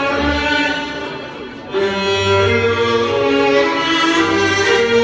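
Orchestral music led by violins and strings, played loud over outdoor show speakers. It dips about a second and a half in, then comes back in strongly.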